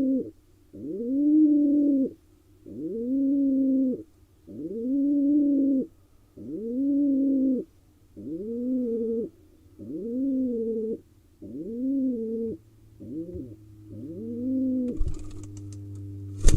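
Male pigeon giving its courtship coo over and over: about nine drawn-out coos, each rising and then falling, roughly one every second and a half, growing weaker toward the end. Near the end come a knock and a sharp click.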